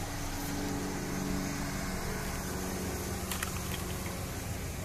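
Ford Ranger pickup's engine idling steadily, warmed up to operating temperature, with a few light clicks about three and a half seconds in.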